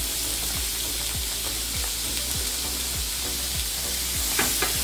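Entrecôte steak, sausages and zucchini sizzling and frying on a hot aluminium grill plate over a portable gas stove: a steady hiss with constant small crackles and pops. Two sharper clicks come near the end as more meat is laid down.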